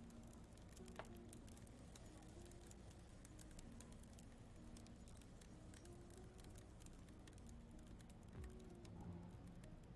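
Near silence: faint background music with quiet, scattered small clicks, one a little sharper about a second in.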